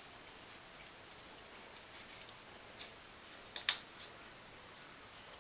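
Small laser-cut birch plywood pieces clicking and tapping as they are handled and pushed together into their slots: a few faint, scattered clicks, the loudest about two-thirds of the way through.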